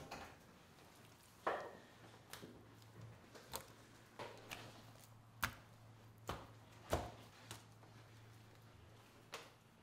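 Raw butterflied trout fillets handled and laid down on a stainless-steel counter while being rubbed with red pepper: irregular wet slaps and sharp taps, about ten in all, over a low steady hum.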